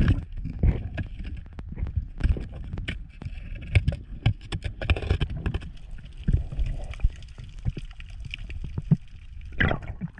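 Water sloshing and gurgling around a snorkeller, with many irregular sharp clicks and knocks over a low rumble.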